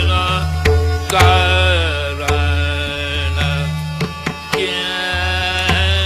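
Male Dhrupad vocal singing in Hindustani classical style: long held, gliding notes in phrases over a steady low drone, with occasional drum strokes.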